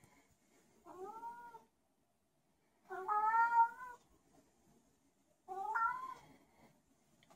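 Domestic cat meowing three times: a short meow about a second in, a longer, louder one around three seconds, and a third near six seconds. It is a special-needs cat that meows for no apparent reason.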